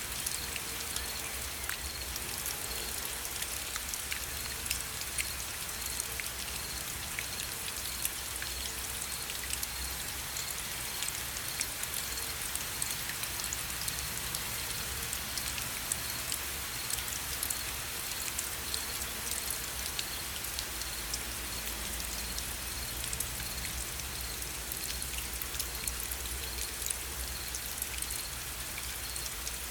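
Gentle rain falling steadily: a constant hiss with many separate drop ticks scattered through it.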